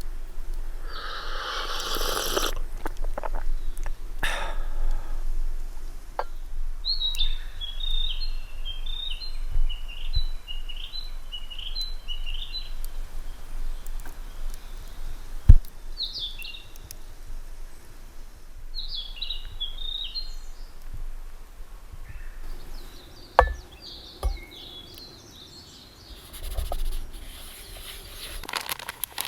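A small songbird sings a quick twittering phrase of high chirps, then two shorter phrases later on. Occasional sharp knocks and a rustling noise near the start and again near the end come from nearby handling.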